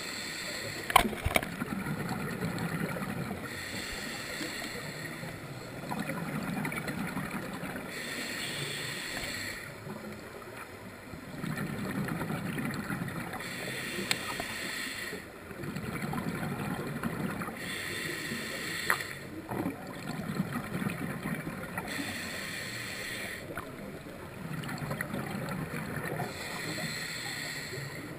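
A scuba diver breathing underwater through a regulator, about six slow breaths: a hiss on each inhale alternates with the bubbling rumble of each exhale. A few sharp clicks cut through, the loudest about a second in.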